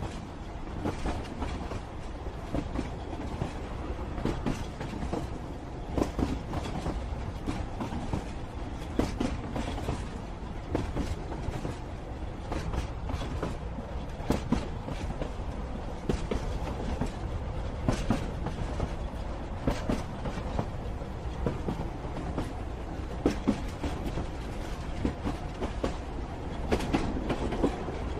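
Train running on rails: a steady low rumble of the carriages with irregular clacks and knocks from the wheels.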